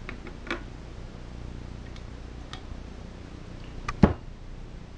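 A few light clicks from small engine parts being handled, then one sharp knock about four seconds in as a plastic oil bottle is set down on the wooden workbench.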